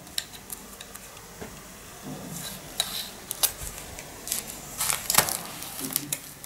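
Scissors snipping a plastic snack wrapper, a few faint cuts. From about two seconds in, louder crinkling and sharp clicks as the wrapper is handled on a plastic plate.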